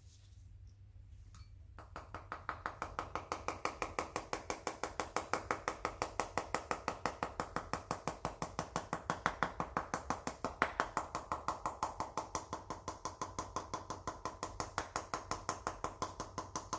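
Rapid, evenly spaced tapping on an opened salute firework shell to knock its flash powder out, about five or six taps a second, starting about two seconds in.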